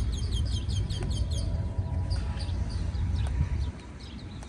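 A bird chirping in a rapid series of short, high notes for the first second and a half, then only now and then, over a low rumble that eases off near the end.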